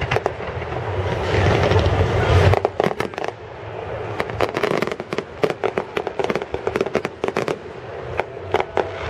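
Fireworks going off: a rapid string of sharp crackling bangs, with a deeper rumble under them for the first two and a half seconds.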